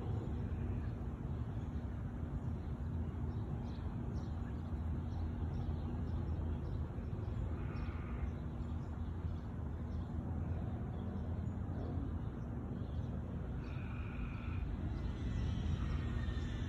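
Outdoor yard ambience: a steady low rumble with a faint steady hum, and a few short bird calls, about halfway through and again near the end.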